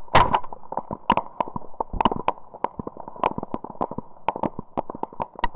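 Scattered gunfire: a string of sharp cracks at irregular spacing, about four a second, over a faint steady tone.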